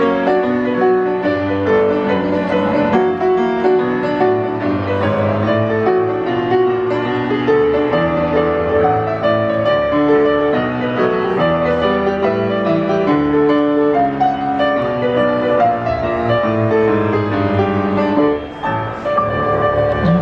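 Grand piano playing a melody over chords, with notes changing steadily throughout.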